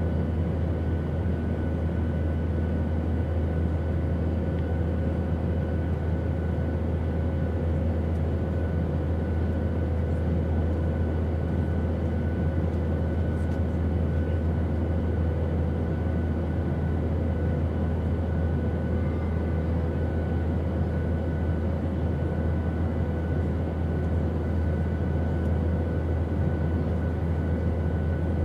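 Steady airplane noise: a constant low drone with a few faint, steady whining tones above it, unchanging throughout.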